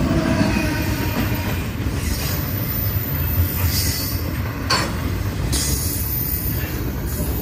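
BNSF double-stack container freight cars rushing past at speed: a steady, heavy rumble of steel wheels on rail, with a sharp clack a little over halfway through.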